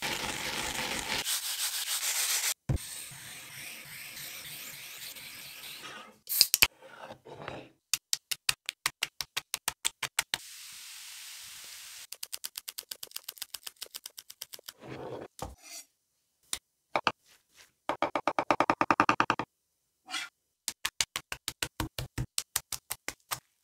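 Whole cucumbers rubbed with coarse salt on a wooden cutting board, a loud scrubbing rasp for the first couple of seconds. Then comes a series of quick, evenly spaced crisp strokes in several short runs, about five a second.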